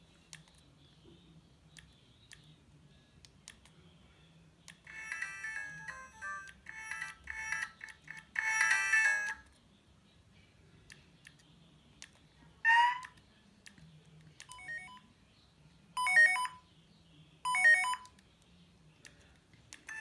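Siemens S55 mobile phone's speaker playing its stock tones: a short multi-note electronic ringtone melody lasting about four seconds, then a single rising sweep and a few brief alert-tone chirps.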